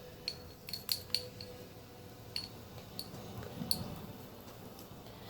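A comb knocking against the side of a container while stirring slime, giving light, irregular clicks, about eight of them.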